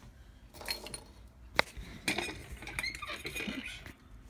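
Handling clicks and clinks as a steel watch case is set into a timegrapher's clamp, with one sharp click about one and a half seconds in.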